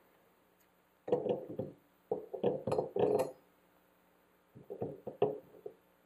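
Short clinks and knocks of metal faucet parts as the lever handle is fitted back onto a Delta single-handle ball faucet, coming in three clusters with pauses between.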